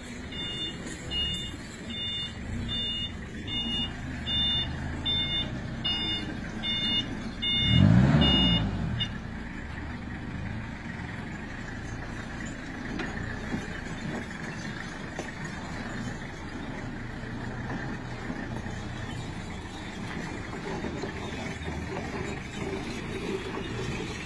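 Vehicle engine running with a steady drone, under an electronic beep that repeats about twice a second for the first nine seconds. About eight seconds in the engine revs up loudly, then settles back to a steady run.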